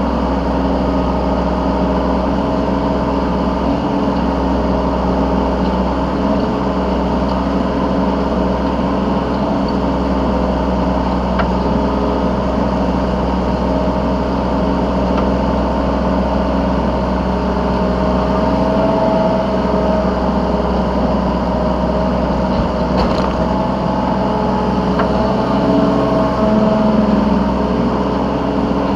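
Yanmar B3 Sigma mini excavator's diesel engine running steadily, heard from the operator's seat while the machine digs and loads; the engine note shifts slightly now and then as it works.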